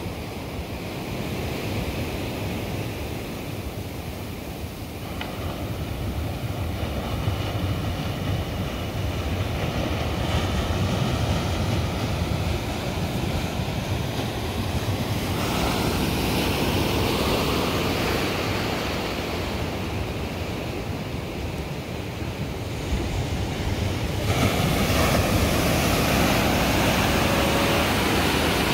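Ocean surf washing and breaking, with wind noise on the microphone. The sound of the water shifts abruptly about halfway through and again a few seconds before the end.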